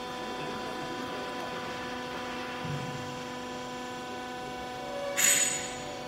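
Steady electric hum from a vertical hydraulic baler's motor and pump running, made of several even tones. About five seconds in comes a short, loud rustling noise as the sack of clothes is handled.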